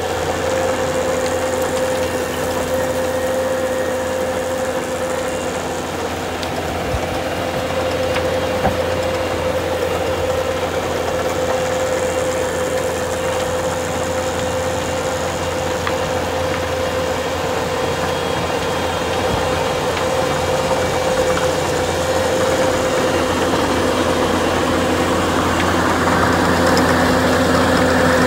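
Bobcat compact track loader's diesel engine running steadily under load, powering a hydraulic rotary tiller attachment that churns through rooted soil. It makes a constant drone with a held tone and grows a little louder near the end.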